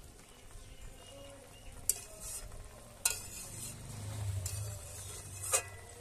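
A fish curry simmering and sizzling in a metal kadai while a metal spatula stirs it, knocking against the pan three times, the loudest clink with a short ring near the end.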